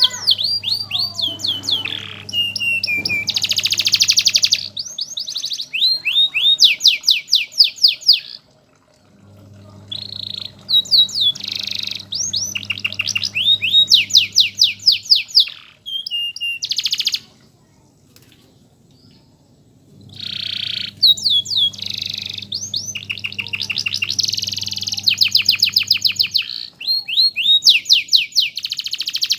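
Canary singing long, high-pitched song phrases of rapid trills and repeated chirps, with a short break and a pause of about four seconds midway.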